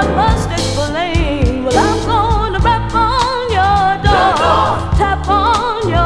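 Gospel-soul song with vibrato-laden singing over a steady bass line and drum beat.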